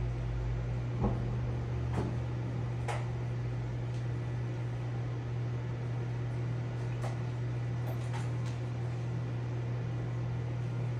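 Steady low electric hum of running aquarium equipment, with a few faint clicks scattered through it.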